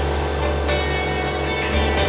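Background music with a deep, sustained bass.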